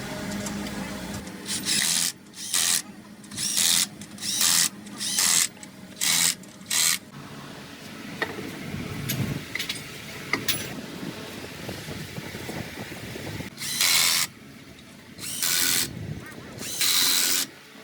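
A power tool run in short repeated bursts: a quick series of about nine brief bursts in the first half, then three longer bursts near the end, typical of bolts on the suspension being run in or out.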